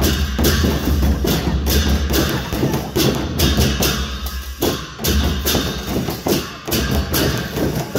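Newar dhime baja: a dhime barrel drum beaten in a fast, driving rhythm with clashing hand cymbals, the low drum strokes dropping out briefly about halfway through.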